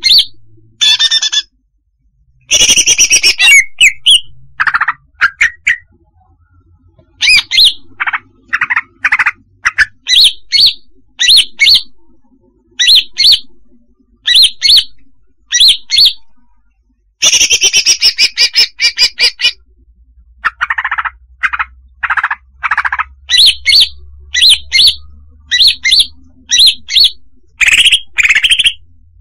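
Female greater green leafbird (cucak hijau) calling, played as a bird-trapping lure: clusters of short, clear chirps repeated quickly. Two longer chattering phrases break in, one a couple of seconds in and one a little past the middle.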